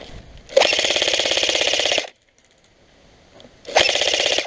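Airsoft electric gun firing two full-auto bursts, a rapid rattle of shots: the first lasts about a second and a half, and a shorter one follows near the end.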